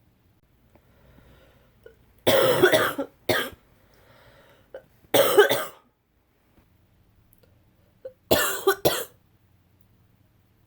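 A woman with a head cold making three loud, explosive bursts of breath about three seconds apart, the first and last each followed closely by a shorter burst, with faint breathing between them.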